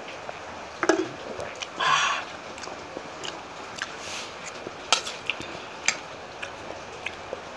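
A person eating close to the microphone: chewing and mouth noises, with a few sharp clicks about a second in and again around five and six seconds, and a short breathy burst of noise about two seconds in.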